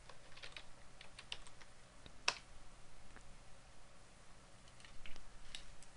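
Faint keystrokes on a computer keyboard typing a search. One louder key press comes about two seconds in, and a few more clicks come near the end.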